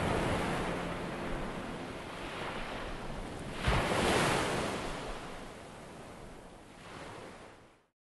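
Ocean surf: a steady wash of waves, with one wave breaking about four seconds in and a smaller one near the end, before the sound fades out.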